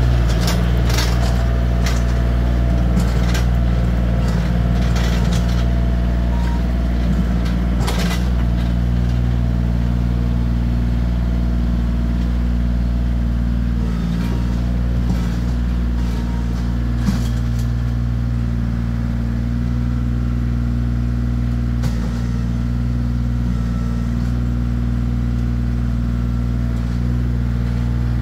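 Bobcat CT2025 compact tractor's diesel engine running steadily as the tractor drives off. Scattered knocks and cracks, thickest in the first eight seconds or so, with a sharper one about eight seconds in.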